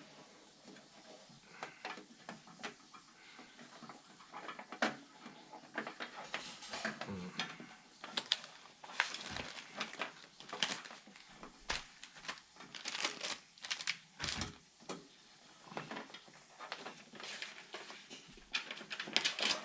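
Irregular small clicks, taps and rustling of hands working on computer parts, with no steady rhythm.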